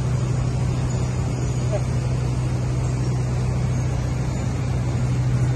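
A steady low mechanical hum, like a running motor or engine, over a constant background noise.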